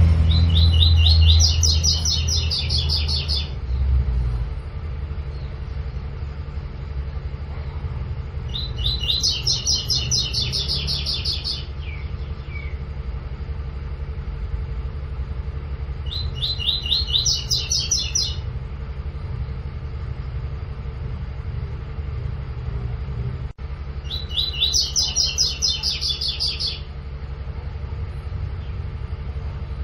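Double-collared seedeater (coleiro) singing its 'tui-tui' song: four phrases of rapid repeated notes, each two to three seconds long, about seven seconds apart, over a steady low rumble.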